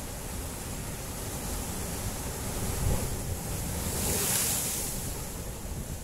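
Sea surf surging into a gully between black rocks on a rocky shore. A wave breaks against the rocks about three seconds in, the loudest moment, followed by the hiss of its falling spray.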